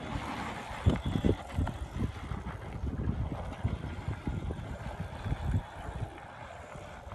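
Wind buffeting the microphone in uneven low thumps, over the fat tires of an electric bike rolling across packed dirt as it passes close by in the first couple of seconds.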